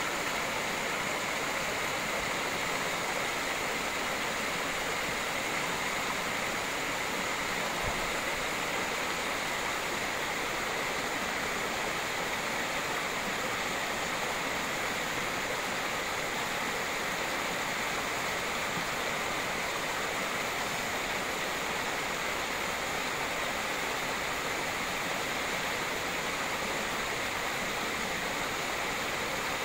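Small woodland waterfall splashing down over rocks into a shallow pool: a steady, unbroken rush of falling water.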